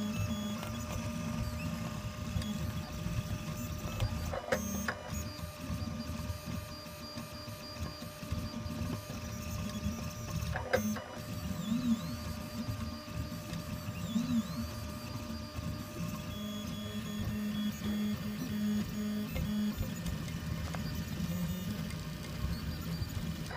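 Reach 3D printer's stepper motors whining in shifting tones as the print head moves back and forth printing PLA, over a steady hum, with a few brief clicks.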